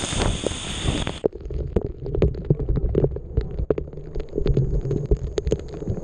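Waterfall water pouring straight onto the camera: a full rushing hiss that turns suddenly muffled about a second in. After that it is a low rumble, with irregular splats of drops striking the microphone.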